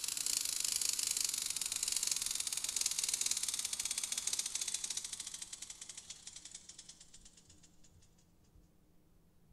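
A dense, rapid, high-pitched clicking clatter that slows into separate ticks and fades away by about eight seconds in.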